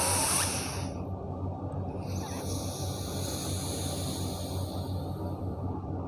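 Slow, deep breaths through one nostril in alternate-nostril breathing (anulom vilom pranayama). One airy hiss of breath ends about a second in, and a second long one runs from about two seconds in until shortly before the end.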